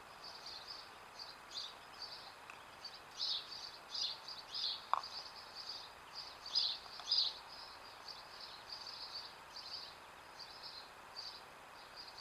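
Small songbirds chirping and singing in quick, high notes throughout, busiest in two spells in the middle, over a steady faint hiss.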